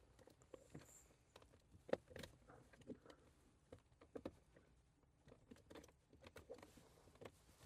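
Near silence with faint, scattered clicks and taps, a few a second at most, the clearest about two seconds and four seconds in.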